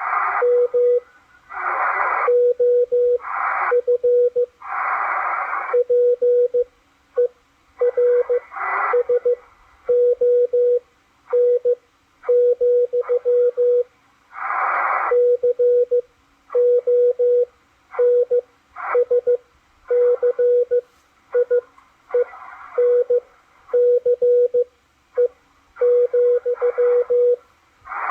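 Morse code from W1AW received on a Malachite DSP SDR receiver: a steady tone of about 500 Hz keyed on and off in short and long elements, with bursts of hissy static filling many of the gaps between them.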